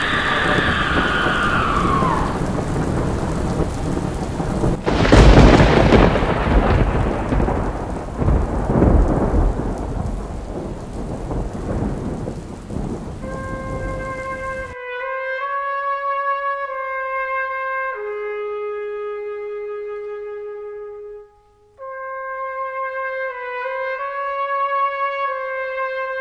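A thunderstorm: steady heavy rain with a loud clap of thunder about five seconds in, and a falling wail that fades out in the first two seconds. The storm cuts off abruptly about halfway through. A slow solo trumpet melody takes over and plays on, with a short pause near the end.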